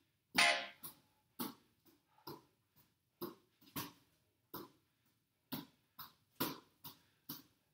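A man breathing hard in quick rhythmic puffs, about two a second, from the effort of a core exercise, with one louder voiced huff about half a second in.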